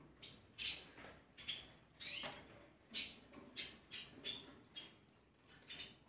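Small caged songbirds chirping faintly, a string of short calls about every half second.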